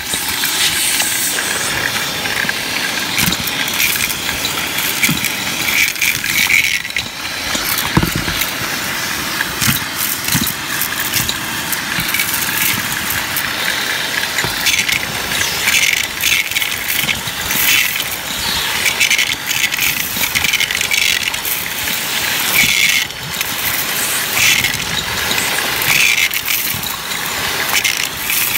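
Shark vacuum cleaner running steadily while its crevice tool sucks up grit, beads and coins, which clatter and crunch as they rattle up the wand in quick irregular clicks.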